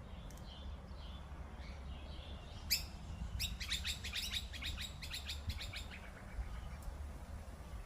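Wild birds calling: a few soft chirps, then a sharp rising note about three seconds in, followed by a quick run of about fifteen descending notes lasting a couple of seconds. A steady low rumble sits underneath.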